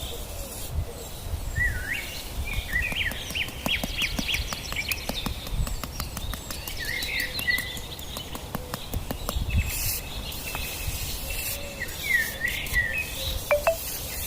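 Small birds chirping and calling in short whistled notes, over a low rumble of outdoor background noise. Through the middle runs a quick series of faint ticks.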